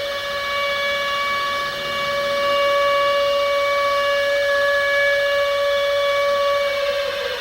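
Civil defence air-raid warning siren sounding the nuclear attack warning: one steady held note with a stack of overtones, which begins to wind down in pitch near the end.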